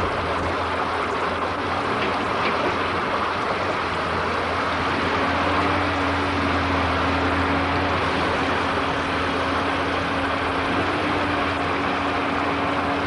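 Water rushing steadily through a breach cut in an earth dam, over the steady hum of a tracked excavator's diesel engine; the engine tone grows a little stronger about five seconds in.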